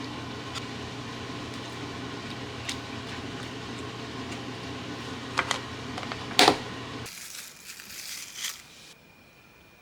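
A steady motor hum that cuts off suddenly about seven seconds in, just after a couple of sharp clicks. Light handling clicks and rustling follow.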